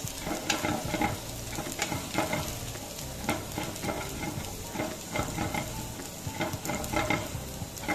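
Finely chopped garlic sizzling in hot olive oil in a non-stick frying pan, stirred with a wooden spatula that scrapes against the pan in quick repeated strokes, about two a second.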